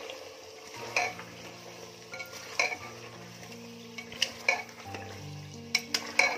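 A steel ladle stirs and scrapes mutton pieces and curd frying in an aluminium pressure cooker, with a steady sizzle. The ladle clinks sharply against the pot now and then, several times in quick succession near the end. This is the bhuna stage, the meat being fried down with yogurt.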